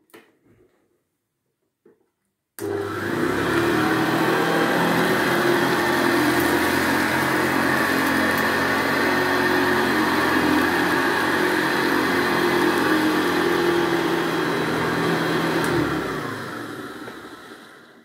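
Hoover Senior 652A upright vacuum cleaner switched on about two and a half seconds in, running steadily with a hum while it is pushed over carpet, then switched off near the end and winding down. Its motor has just been refurbished and oiled.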